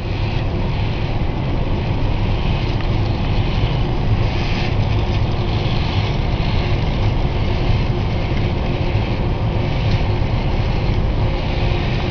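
A programmed toy car running: a steady mechanical whirring and rumble, with a hissier upper layer that swells and eases every second or so.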